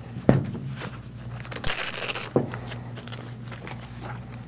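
Handling of a nylon soft carrying case just unzipped: a knock just after the start, then a short rustle of fabric about two seconds in that ends in a click, over a low steady hum.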